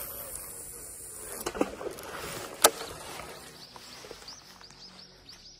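Gan Craft Jointed Claw Shaku-One big-bait swimbait cast out and hitting the pond surface with one sharp splash about two and a half seconds in. The splashdown is a deliberate attention-getting sound for bass.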